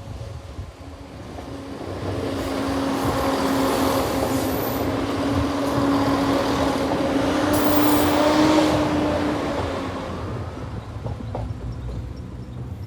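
Northern passenger train passing over a level crossing: a broad rumble swells to its loudest about eight seconds in, then fades away. A steady low tone runs underneath while it passes.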